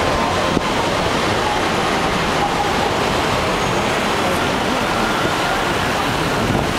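Steady road and traffic noise from a car driving in heavy city traffic: a dense, even noise with no distinct events.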